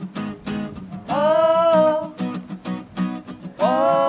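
Two acoustic guitars strummed in a steady rhythm, with a woman singing two long held notes, about a second in and near the end.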